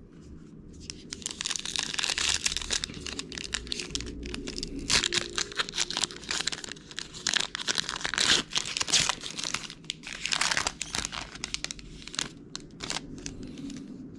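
Crinkly plastic wrapper of a trading-card pack being torn open and crumpled by hand. The crackling comes in rapid, uneven bursts, loudest in the middle.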